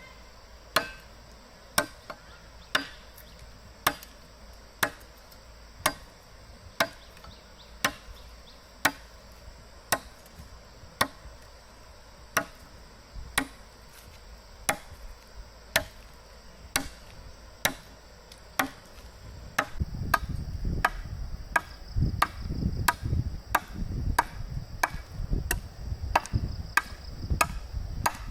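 Repeated chopping strikes, about one a second, that quicken about twenty seconds in, with heavier low thuds mixed in. A steady high insect drone runs behind.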